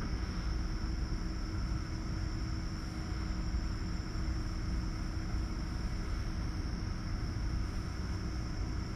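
Steady low mechanical drone with a constant hum and a faint high hiss, the background noise of an indoor farrowing pen. It runs unchanged, with no grunts or other sounds from the sleeping piglets standing out.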